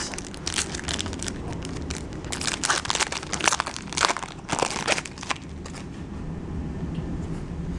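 Foil wrapper of a baseball card pack being torn open and crinkled by hand. A quick flurry of crackles runs for about five seconds, then it goes quiet.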